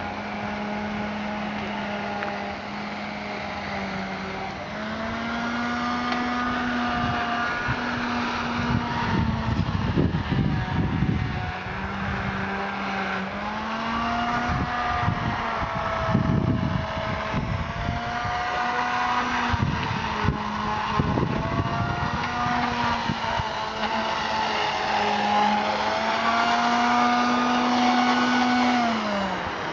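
An engine running steadily, its pitch stepping up and down several times and falling away near the end, with a few bursts of rushing noise.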